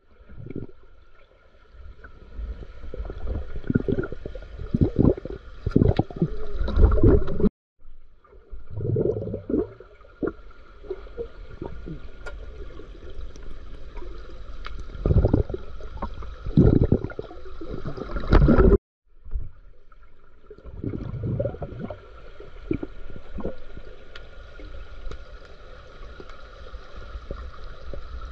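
Pool water heard underwater: irregular bubbling and gurgling rushes from swimmers moving, over a steady high hum. The sound cuts out briefly twice.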